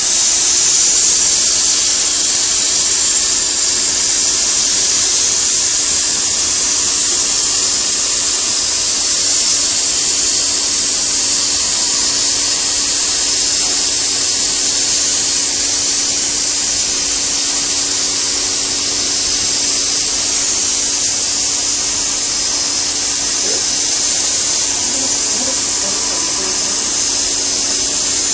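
HydroKleen coil-cleaning machine spraying, a loud, steady high-pitched hiss with a faint motor hum underneath.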